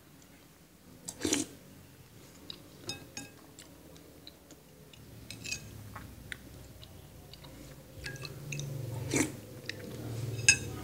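A spoon clinks against a dish now and then while someone chews soft pumpkin compote, with a few louder clinks, one of them ringing near the end. A low steady hum comes in and grows through the second half.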